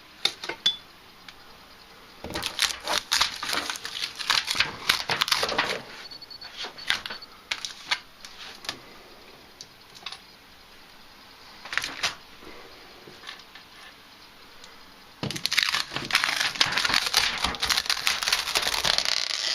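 Aluminium foil crinkling and crackling as it is handled, in two bursts of a few seconds each, with a few scattered clicks between them.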